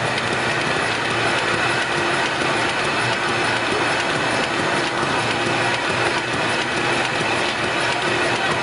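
Kirk-Rudy mailing machine running: the feeder belts and conveyor make a steady mechanical clatter with fine, fast ticking and a faint hum.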